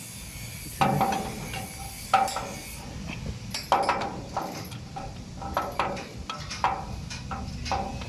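Irregular metal clinks and knocks, a dozen or so, each ringing briefly, as tools or metal parts are struck or set down.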